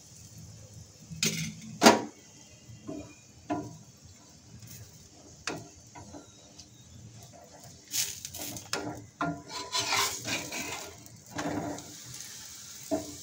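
Steel spatula and utensils knocking and scraping against a tawa as a frying paratha is pressed and shifted. The sounds come as scattered sharp clicks and clatters, the loudest about two seconds in, with a busier run of taps and scrapes from about eight to eleven and a half seconds.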